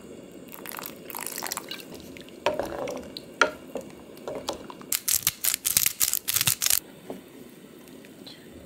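Kitchen sounds at a pot of vegetable broth: a spoonful of soy sauce poured in, and a wooden spatula stirring and splashing through the broth. About five seconds in comes a quick run of sharp clicks as pepper is added.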